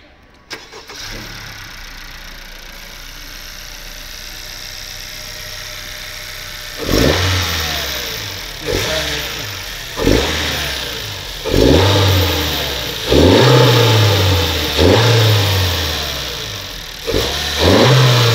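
Honda Civic FK7 engine, breathing through a newly fitted MST cold air intake with an open cone filter, starts and idles steadily. From about halfway through it is blipped in about seven sharp revs, each rising quickly and falling back to idle.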